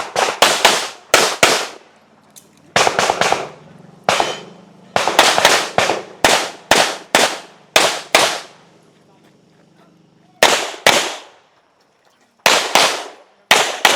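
Gunshots from a competitor shooting a practical-shooting stage: about thirty sharp cracks fired in quick strings of two to four, with short pauses between strings. There are two longer breaks, one of about two seconds past the middle and a shorter one later, while the shooter moves between positions.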